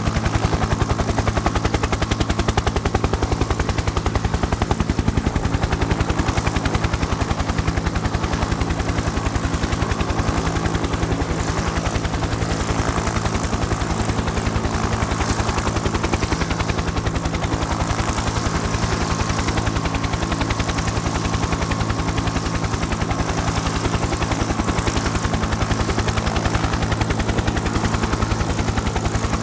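Helicopter noise heard from aboard the aircraft: the rapid, even chop of the rotor blades over a steady engine drone.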